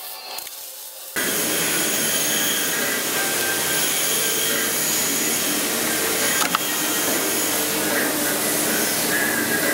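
Bench drill press running, its bit spinning over a brass block held in a machine vise: a steady whirr with several fixed tones that cuts in abruptly about a second in, with one sharp click midway.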